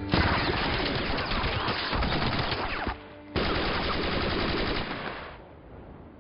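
Massed volley of rifle and machine-gun fire: a dense, continuous crackle of overlapping shots that starts suddenly. It breaks off for a moment about three seconds in, resumes, then dies away into fainter echoing near the end.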